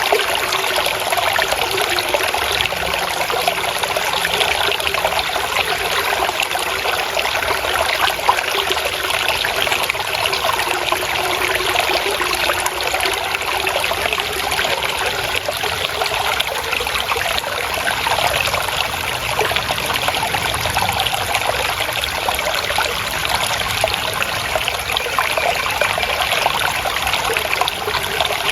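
Water trickling and splashing steadily, a small stream or runnel of water flowing over stones, with a dense, even burble.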